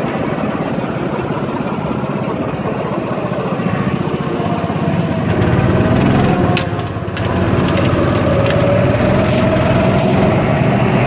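Go-kart's small engine running under throttle as the kart drives the track. Its note rises and falls with the throttle, easing off briefly about seven seconds in before picking up again.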